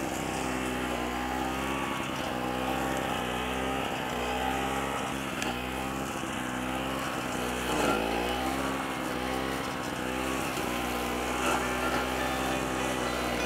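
AS-Motor AS 63 walk-behind high-grass mower running as it cuts through dense tall grass. Its engine speed sags and recovers again and again under the changing load, with a deeper dip and pick-up about eight seconds in.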